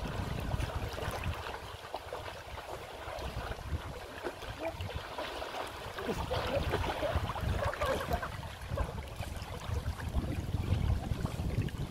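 Shallow river water rushing and rippling over a stony bed, with wind rumbling on the microphone.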